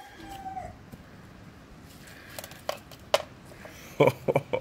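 Small metal fragments of a shattered gearbox third gear tapping and clicking onto a hard plastic tray as they are squeezed out of a cloth sock filter. Several sharp separate ticks come from about halfway in, bunched together near the end.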